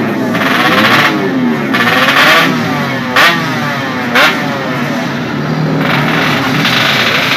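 Yamaha RX-King two-stroke single-cylinder engine, bored to 140cc and tuned for road racing, revved repeatedly by hand on the throttle, its pitch rising and falling with each blip. Two sharp cracks about a second apart come near the middle.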